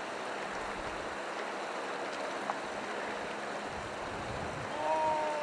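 Steady rush of a shallow river's current flowing over gravel, with a single faint click about halfway through and a short, slightly falling pitched sound near the end.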